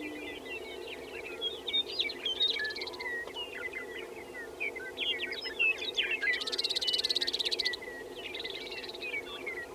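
Greater prairie chicken lek: a steady low booming hum from displaying males under a dense scatter of short, high bird chirps and cackles. A fast buzzy rattle runs for about a second and a half in the second half.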